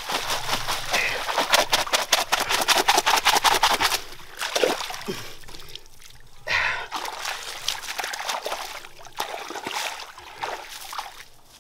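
A person splashing and sloshing in shallow muddy water: a fast run of splashes for about four seconds, then slower, softer splashing.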